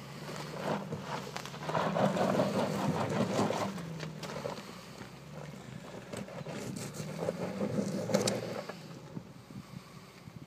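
2007 Volkswagen Touareg's V8 engine pulling at low revs as the SUV crawls up a rocky, rutted trail, the engine note rising and swelling twice as throttle is added. Tyres crunch and crackle over loose rock and gravel underneath.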